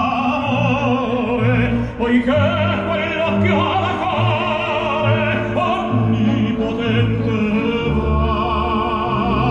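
An opera recording with a singer's voice wavering in vibrato over a sustained orchestral accompaniment, played through the Volvo S90's Bowers & Wilkins car audio system in its concert-hall mode.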